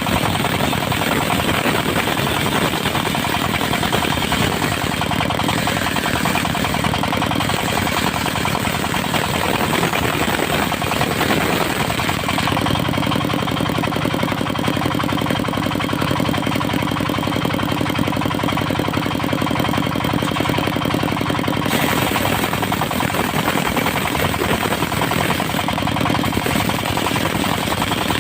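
Engine of a mobile circular-saw sawmill running steadily. For about nine seconds in the middle the sound changes, with less hiss and a steadier low hum, then goes back to how it was.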